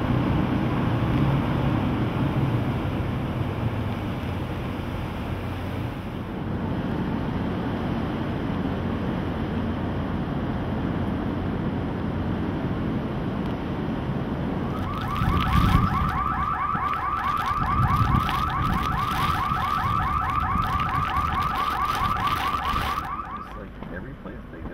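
Steady storm wind noise, then about fifteen seconds in a car alarm starts up: a rapid, pulsing two-tone electronic chirp that runs for about eight seconds and stops shortly before the end. Heavy wind gusts surge under it twice.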